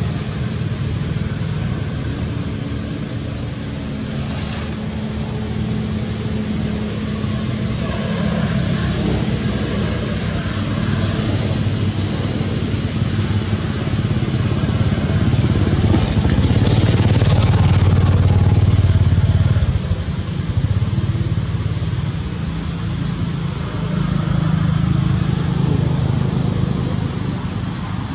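A steady low motor drone, like engines running nearby, that swells to its loudest about sixteen seconds in and drops back near twenty seconds, under a constant high hiss.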